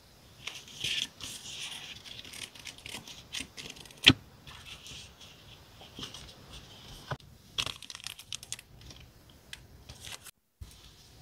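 Plastic and paper packaging of sticker and label sheets crinkling and rustling as they are handled and opened, with a sharp click about four seconds in.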